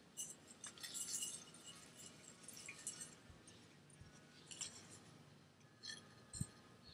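Christmas ornaments clinking faintly as they are handled, in small clusters of light clicks and chinks, with a soft low thump near the end.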